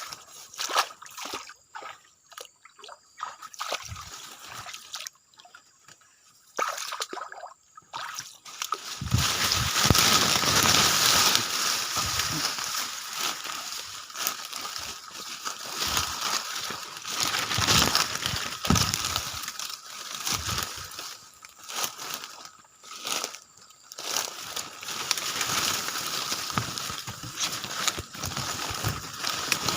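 Water sloshing and splashing: a few scattered splashes over the first several seconds, then continuous uneven sloshing from about nine seconds in.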